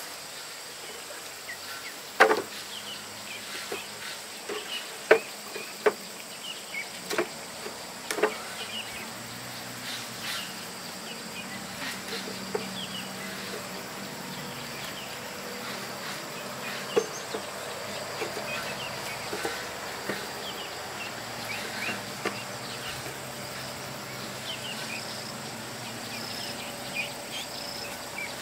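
Sharp, irregular wooden knocks and taps as the bamboo slats of a low bamboo bed are worked on, most of them in the first third, over a steady high buzz of insects.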